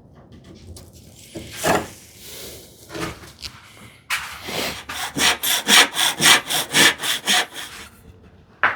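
Hand saw crosscutting the end of a small wooden strip: a few slow starting strokes, then even back-and-forth strokes about three a second that stop about eight seconds in, followed by a short knock.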